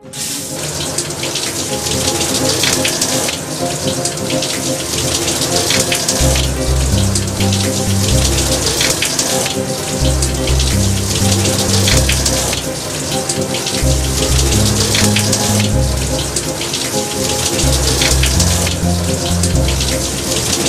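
Shower spray running steadily, a hiss of falling water, under background music with held notes; a deep stepping bass line comes in about six seconds in.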